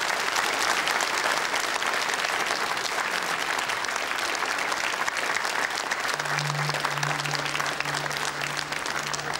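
Studio audience applauding, a dense steady clatter of clapping. About six seconds in, low sustained music notes begin under the applause.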